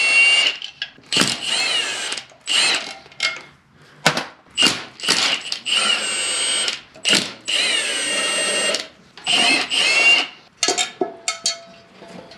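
Milwaukee Fuel cordless impact wrench run in a dozen or so short trigger bursts, its motor whine rising and falling with each one, as it spins the intake manifold nuts off a D179 diesel engine.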